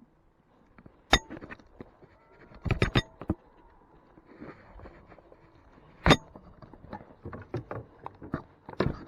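Irregular sharp knocks and clicks in a fishing boat, with a few loud ones about a second, three seconds, six seconds and nine seconds in.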